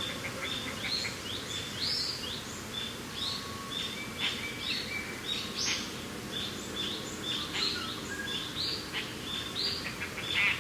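Many birds chirping and calling at once, short overlapping notes with no pause, over a steady low rush of wind.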